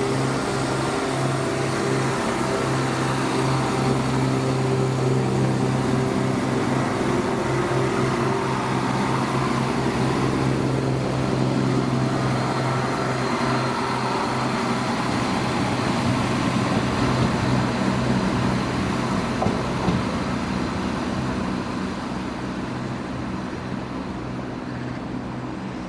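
Southern Class 171 Turbostar diesel multiple unit moving along the platform: a steady low diesel engine drone with wheel and rail rumble, easing a little near the end.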